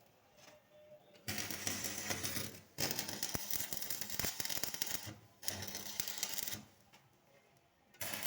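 Electric arc welding: bursts of dense, crackling arc noise that start and stop abruptly. Four runs of a second or two each are broken by short pauses, the last starting near the end.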